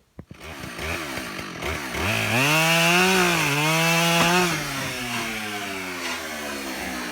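Husqvarna 572 XP two-stroke chainsaw revving up to high speed over about two seconds and holding there briefly. The revs then drop to a lower, steady running speed. This is the back release cut that finishes a bore cut on a felled tree.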